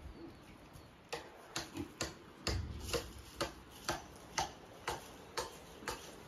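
Pig making short, repeated grunts, about two a second, starting about a second in.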